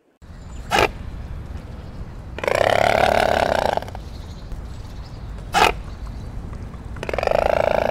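Mute swan calling: two short, sharp calls alternating with two longer nasal calls of about a second and a half each, over a steady low background rumble.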